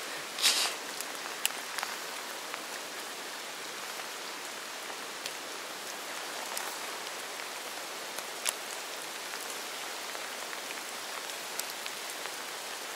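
Steady rain falling on water and wet ground, with scattered sharp ticks of drops striking close by and a brief louder crackle about half a second in.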